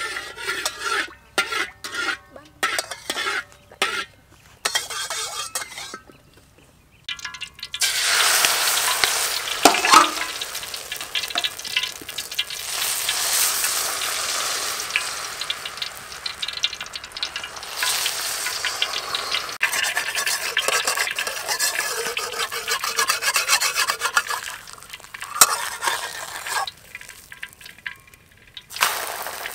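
Short scraping strokes of a utensil, then, about seven seconds in, a loud steady sizzle as beaten egg fries in a hot oiled aluminium wok into a thin omelette sheet. The sizzle eases off near the end, with a brief flare just before it ends.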